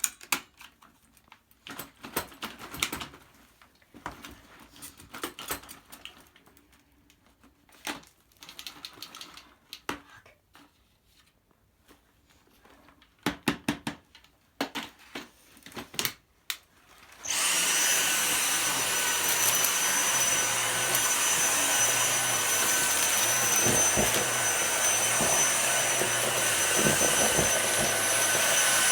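Scattered knocks and rattles of the Dyson V6 Slim cordless stick vacuum being handled, then, about 17 seconds in, its motor switches on suddenly and runs steadily with a high-pitched whine.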